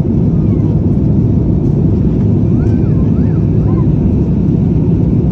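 Steady low engine and airflow noise inside the cabin of an Airbus A321-211 jet airliner, with no change in pitch or level.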